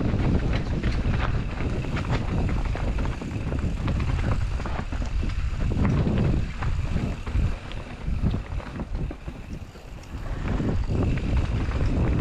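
Rocky Mountain Slayer full-suspension mountain bike riding down a dirt trail: tyres rumbling over the ground and the bike rattling in many sharp clicks, with wind buffeting the microphone. The noise eases and breaks up for a couple of seconds about eight to ten seconds in.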